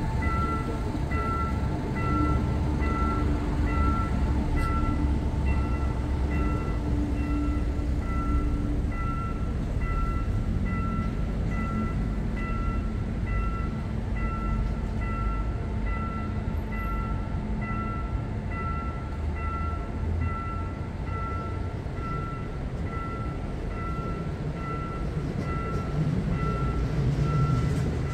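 Railway level-crossing warning bell dinging at an even pace, warning of an approaching train. Under it runs a low rumble that grows near the end as an ITX-Maeum electric train draws near.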